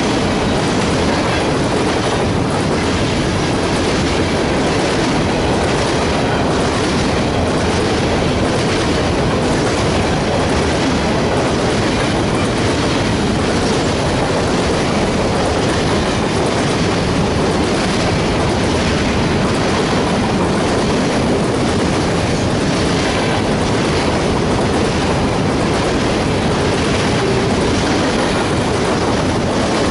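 Freight train of hopper cars rolling past at close range: a steady rumble of steel wheels on rail with a clickety-clack over the rail joints.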